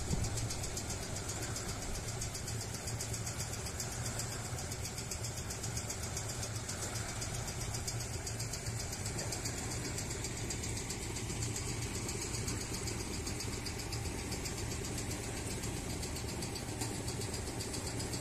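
Steady, even drone of machinery running as transformer oil is pumped out of drums through hoses into a tank.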